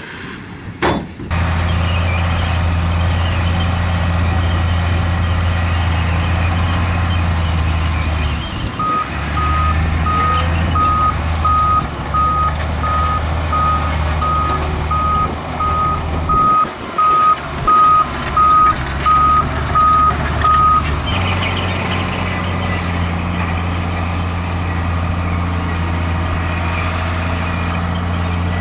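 Heavy diesel earthmoving machinery running steadily, with a reversing alarm beeping at an even pace, about three beeps every two seconds, for roughly twelve seconds in the middle. There is a sharp knock about a second in.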